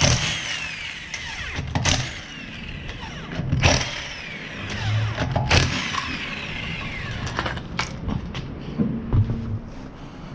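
Power tool working the wheel's lug nuts loose, in short bursts about every two seconds, each followed by the motor's whine falling in pitch as it winds down.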